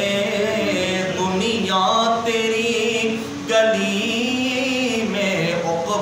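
A man's solo voice singing an Urdu naat without accompaniment, drawing out long melodic notes that slide up and down, with a short breath about three and a half seconds in.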